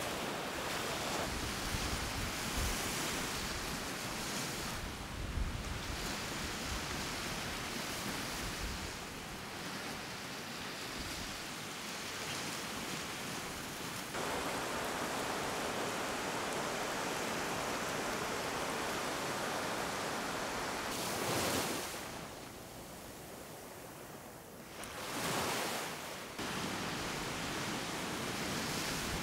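Small sea waves breaking and washing up a sandy beach, a steady rushing surf with some wind on the microphone. The surf drops away for a few seconds about two-thirds through, then swells again as the next wave comes in.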